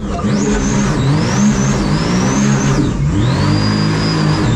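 Supercharged mini jet boat engine running hard, its revs dipping and climbing again about three times, with a high whine that rises and falls with the revs. A rush of water and wind runs underneath.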